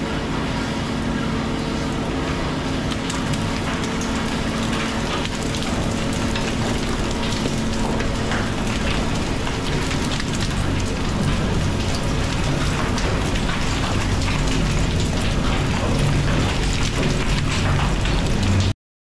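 Tunnel boring machine cutterhead grinding through the last of the rock at breakthrough: a loud, steady grinding with a dense crackle of breaking and falling rock over a low machine hum. It cuts off abruptly near the end.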